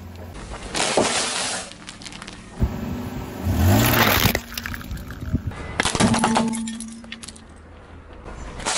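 Car tyre crushing hard plastic toys, a series of loud cracks and snaps as the plastic breaks, in several separate crushes a couple of seconds apart.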